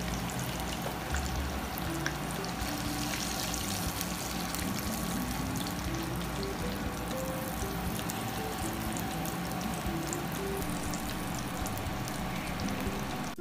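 Hot oil sizzling and crackling steadily in a frying pan, with faint background music playing underneath.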